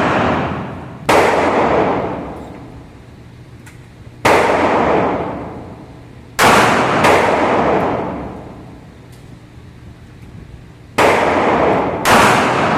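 Six gunshots at uneven intervals, each a sharp crack followed by a long fading echo.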